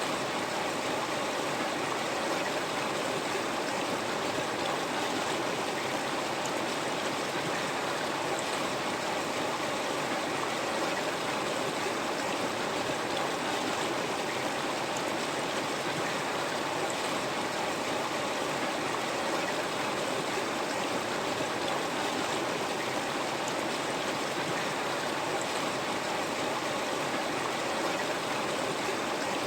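River water flowing steadily over rocks, a constant even rushing.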